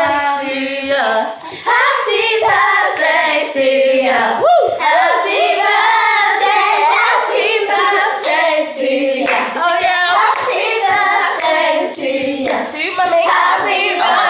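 Several voices singing with hand clapping scattered through it.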